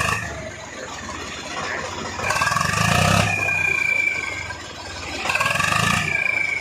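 Swaraj 855 tractor's diesel engine blipped twice from idle, with an aftermarket turbo whistle on the exhaust. Each blip raises a high, multi-tone whistle that sinks slightly and fades as the revs fall back.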